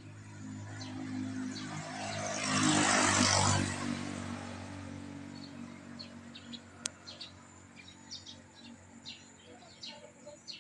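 A motor vehicle passes, its engine hum and road noise swelling to a peak about three seconds in and then fading away. Small birds chirp throughout, more often in the second half, and there is one sharp click about seven seconds in.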